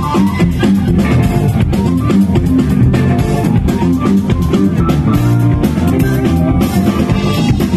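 A live funk band playing loud: electric bass, a semi-hollow electric guitar and a drum kit, with drum hits keeping a steady beat.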